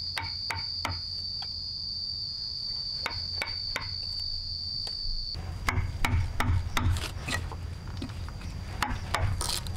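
Steel chisel jabbed by hand into a log, its blade knocking and cutting into the wood and prying out chips. A few spaced strikes at first, then a quick run of harder strikes from about halfway.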